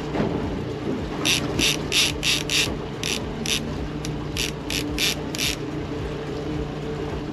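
Multiplier fishing reel clicking in about eleven short bursts over some four seconds while a hooked fish is played on the bent rod. A steady low hum from the boat's engine runs underneath.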